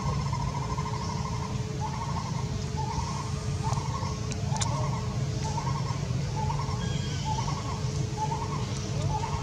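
Steady low rumble of a running vehicle engine. Over it, a short mid-pitched call repeats about once a second.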